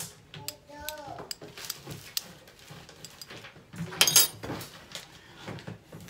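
A metal spoon taps repeatedly against an eggshell to crack it, with a louder clink about four seconds in. The egg turns out to be still raw.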